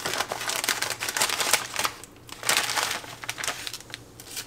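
Plastic packaging crinkling and rustling as it is handled and pulled open, with irregular crackles and a louder flurry about halfway through.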